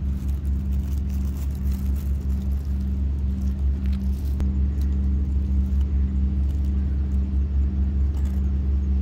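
A motor running steadily with a low drone, with a few faint clicks over it.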